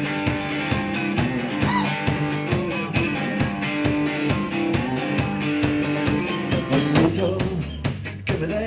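Live rock band playing: electric guitar and electric bass over a drum kit keeping a steady beat, with the bass growing deeper about seven seconds in.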